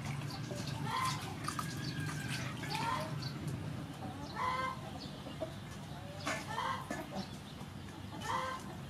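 Chickens clucking, short calls recurring every second or two.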